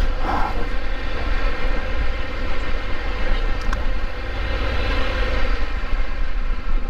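Riding on a Triumph adventure motorcycle: steady wind rumble on the rider's microphone over the running engine and road noise.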